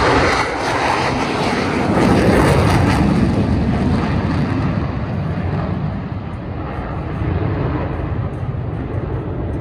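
Four F-16 fighter jets in close formation making a low pass, their engines a loud jet roar. The roar loses its high end after about four seconds and slowly fades as the jets climb away.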